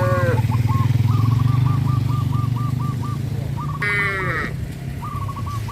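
A motor running steadily with a low, fast-pulsing hum. Over it are short bleats at the start and again about four seconds in, with a run of quick high chirps between them.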